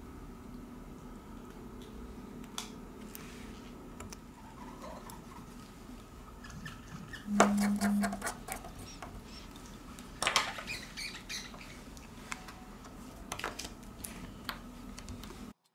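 Small clicks and taps of a precision screwdriver and the internal parts of a Xiaomi Mi 9 phone being handled and fitted, over a steady low hum. The loudest moment, about halfway, is a cluster of clicks with a brief low buzz. The sound cuts off suddenly near the end.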